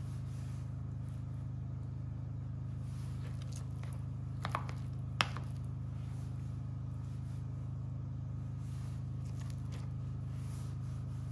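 A steady low hum, with two short clicks about four and five seconds in as a metal teaspoon scoops spinach and ricotta filling from a plastic tub and drops it onto a pasta sheet.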